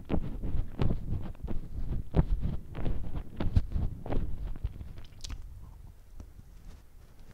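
A person chewing a donut with the mouth: quick wet clicks and smacks. The chewing dies down over the last two seconds or so.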